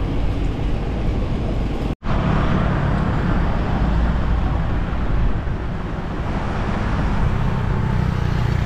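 Wind and road noise on the microphone of a camera riding along on a moving bicycle, a steady rush heaviest in the low range. It drops out for an instant about two seconds in.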